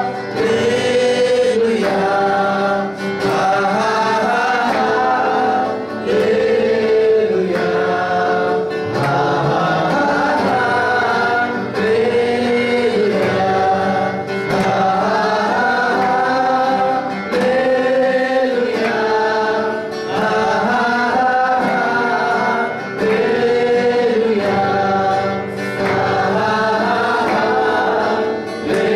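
A small worship team of male and female voices singing a Nepali praise song together through microphones, accompanied by acoustic guitar, in repeating melodic phrases a few seconds long.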